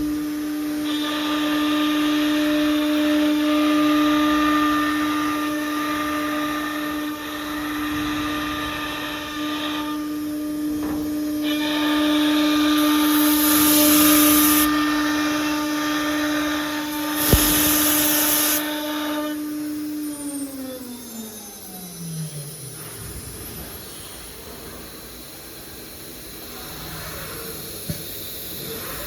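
CNC nesting router running, its spindle giving a steady whine while it cuts through a panel in two stretches with a short break in between. There are brief sharp bursts of air hiss and one click. About two-thirds of the way through the spindle winds down, its pitch sliding down and fading.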